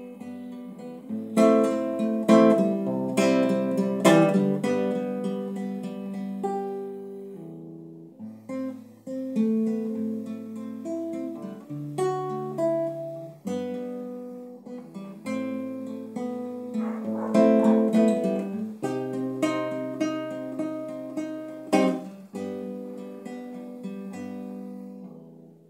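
Classical guitar playing an instrumental passage of a Latin American folk song: picked bass notes under chords, with several sharp strummed chords standing out.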